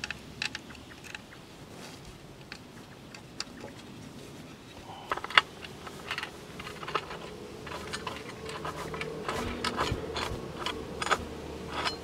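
Small clicks and taps of plastic parts and small metal screws being handled and fitted to a bird feeder's plastic mounting plate. The taps are sparse at first and come thicker from about halfway through.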